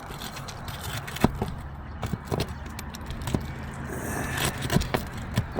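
Roof shingles being pried up and their nails worked out: scraping with several sharp metal clicks and knocks, a few strokes spaced about a second apart.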